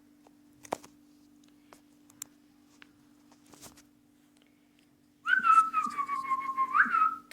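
Ring-necked parakeet chick begging as it is syringe-fed: a loud, pulsing, whistle-like cry that starts about five seconds in, sagging slightly in pitch and then rising sharply near the end. Before it there are only a few faint clicks over a steady low hum.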